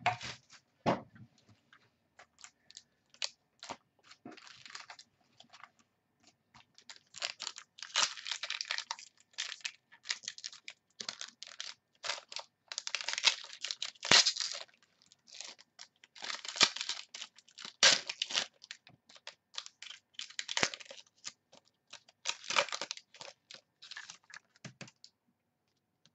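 Foil-wrapped football trading-card packs being torn open and handled: bursts of crinkling and tearing wrapper mixed with many sharp clicks and snaps of cards and packs.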